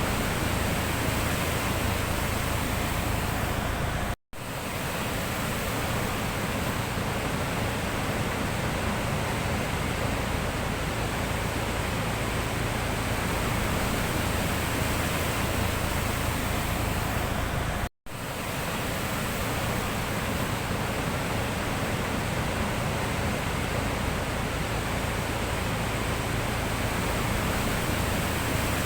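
Steady wash of sea surf, an even rushing noise with no clear swells. It cuts out abruptly for a moment twice, about four seconds in and again about eighteen seconds in, then fades straight back.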